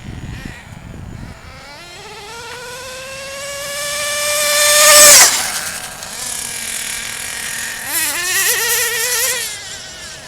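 Radio-controlled car's small, high-revving motor accelerating toward the listener, its whine rising to a loud peak about five seconds in, then falling sharply in pitch as it passes close by. About eight seconds in it revs up again briefly.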